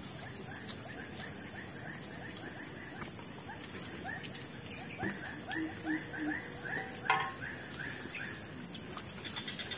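Steady high-pitched chorus of insects, with runs of quick chirping calls repeating several times a second over it. A short knock sounds about seven seconds in.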